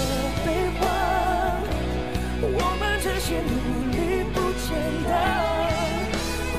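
Live pop ballad: a singer holds long wordless notes with a wide vibrato over steady band accompaniment.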